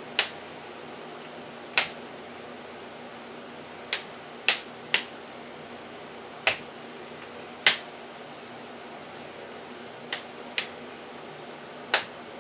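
Metal spoon clicking against the bottom of a metal baking pan as it is poked down through uncooked mac and cheese, about ten sharp, separate clicks at uneven intervals.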